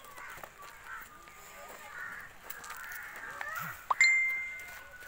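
Outdoor background of distant voices and bird calls, with a single sharp metallic ding about four seconds in that rings on and fades over about a second.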